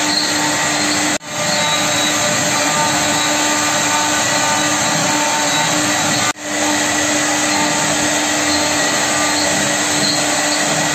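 Woodworking machinery running steadily: a constant rushing noise with a steady hum and whine. It drops out briefly twice, about one second in and about six seconds in, and fades back up each time.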